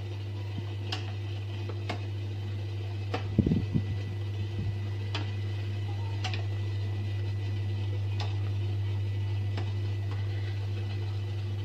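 Spatula stirring steamed rice in a stainless steel steamer pot: about seven light ticks, roughly one every second or two, over a steady low hum, with a dull knock about three and a half seconds in.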